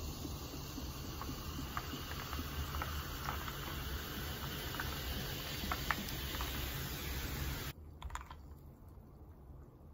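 Carbonated water poured from a bottle over ice in a glass: a steady pouring hiss with fizzing and crackling ice. It cuts off sharply about eight seconds in, leaving quieter fizzing with a few small clicks.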